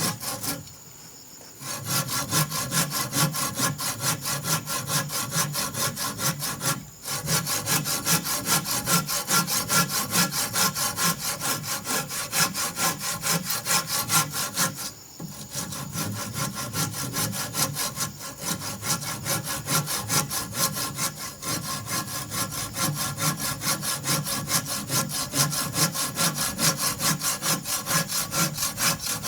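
Saw cutting through wood in quick, even back-and-forth strokes, starting about two seconds in, with two short pauses along the way.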